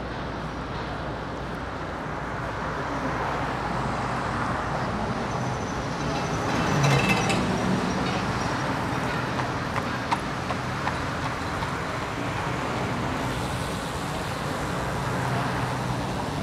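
City street traffic heard from a moving bicycle: a steady wash of cars and buses that swells about seven seconds in as a vehicle passes close, with a brief high-pitched squeal at the loudest point and a few sharp clicks shortly after.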